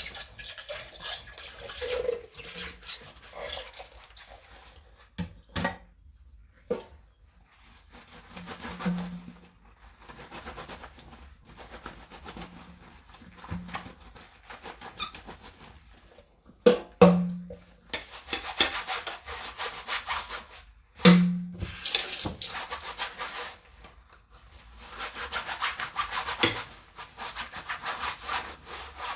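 Dishes being washed in a sink: stretches of scrubbing and rubbing, broken by sharp knocks and clinks of dishes, two of them louder about two-thirds of the way through.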